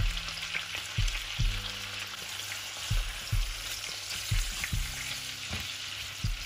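Prawns frying in olive oil in a stainless steel sauté pan, a steady sizzle. A utensil stirring them knocks softly against the pan about once or twice a second.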